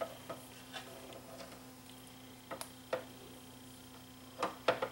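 Light, scattered clicks and taps of a screwdriver and fingers working the small screws and metal bracket of an LCD TV's display panel in its plastic housing, with a quick run of clicks near the end.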